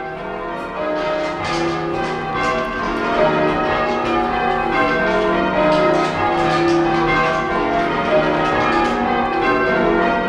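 Church tower bells rung full circle by a band of ringers in the English change-ringing style: bells of different pitch strike one after another in a steady, rolling sequence, each note ringing on under the next. The ringing swells over the first second or so, then stays loud.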